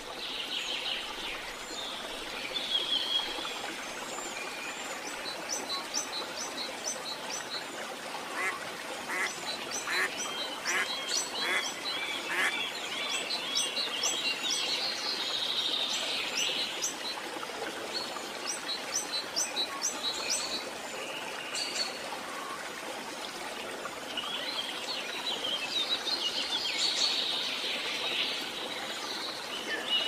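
Birds chirping and calling, with quick runs of high repeated notes and trills coming again and again over a steady background hiss.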